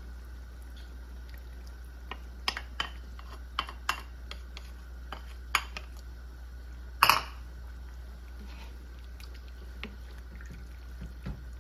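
A wooden spatula knocking and scraping against a bowl and a wok as marinade is poured out into the pork, with liquid pouring. There is a scattered series of sharp knocks, the loudest about seven seconds in, over a steady low hum.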